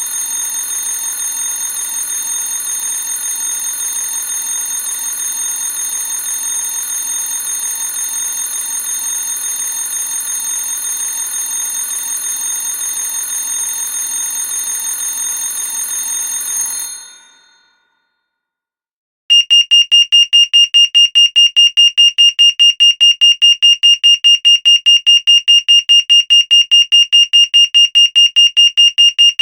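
An alarm bell rings continuously with a dense metallic ring, then stops about 17 seconds in and rings out. After about two seconds of silence, an electronic alarm starts beeping rapidly on a single high tone, several beeps a second.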